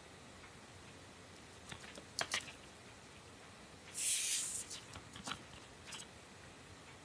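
Trading cards being handled on a cloth-covered tabletop: a few light taps and clicks of card edges, a short sliding rustle of a card about four seconds in, then a couple more taps.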